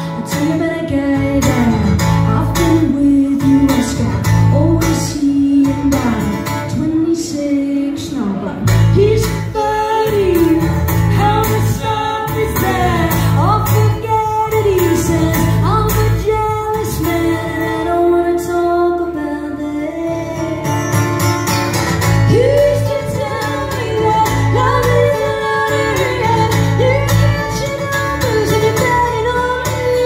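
Live band performance: a woman's lead vocal over strummed acoustic guitars and a steady bass line.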